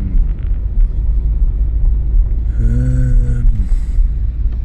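Steady low rumble of a car heard from inside the cabin, with a brief low, even-pitched sound about three seconds in.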